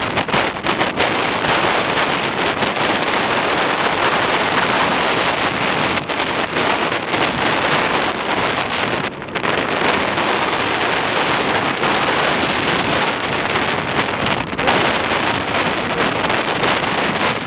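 Blizzard-force wind blasting the camera's microphone: a loud, steady rush of wind noise that eases briefly twice.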